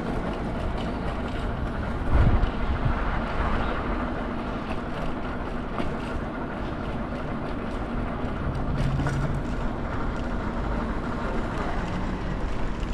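City street noise with traffic running steadily and a brief, louder low rumble about two seconds in.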